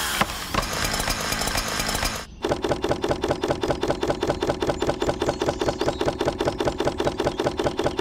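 A rapid, very regular rattling, about six beats a second. It starts about two seconds in and stops just before the end.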